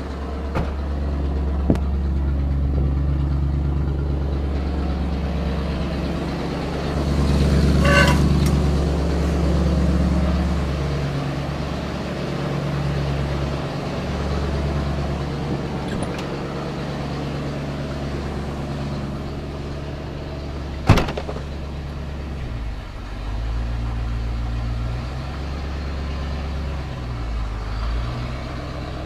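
A 1991 Ford F250's rebuilt, carbureted 351 Windsor V8 running steadily as the truck creeps along at low speed. The engine gets louder for a few seconds about a quarter of the way in, and its note drops and shifts in the last quarter. A single sharp click comes about two-thirds of the way through.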